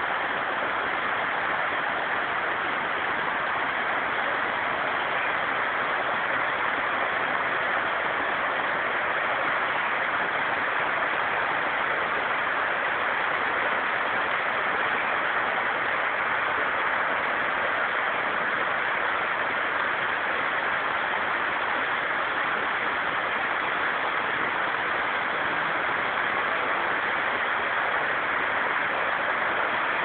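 Waterfall running down a rock face into a stream: a steady rush of water with no change in level.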